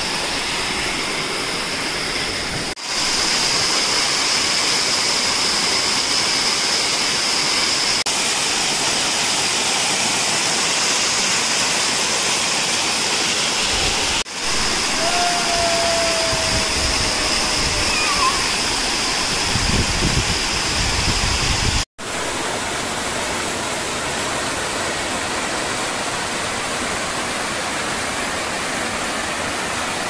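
Waterfall splashing down onto rock: a steady, loud rush of falling water, broken off for a moment about 3, 14 and 22 seconds in.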